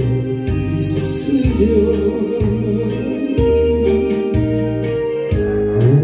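Karaoke backing track of a trot song playing an instrumental passage between sung lines, with a steady beat, a bass line and sustained keyboard notes.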